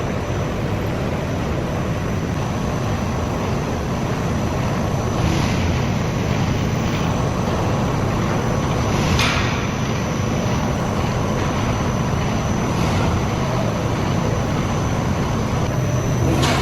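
Continuous carbonization furnace machinery running steadily: a constant mechanical rumble with a thin high whine, and a few short hissing surges.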